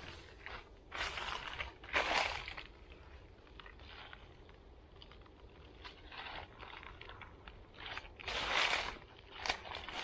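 Footsteps crunching through dry fallen leaves on a forest path. A few loud steps come near the start and again near the end, with softer rustling in between.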